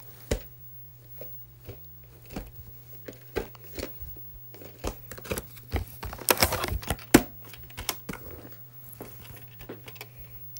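A VHS cassette and its plastic clamshell case being handled: scattered sharp clicks and crinkly rustles, thickest about six to seven seconds in, over a faint steady low hum.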